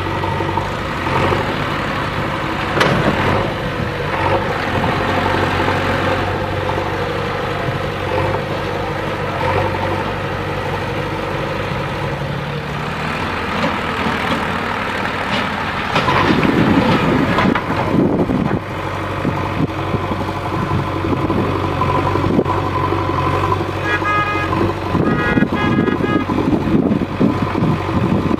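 Diesel engine of a JCB 3DX backhoe loader running steadily at work, getting louder and rougher about halfway through. Near the end there are several short horn beeps.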